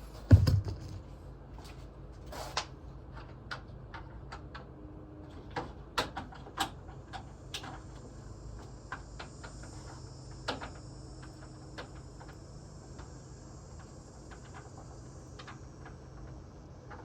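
A heavy thump about half a second in, then scattered irregular clicks and knocks over a low steady hum, typical of tools and parts being handled during repair work. A faint high hiss comes in partway through.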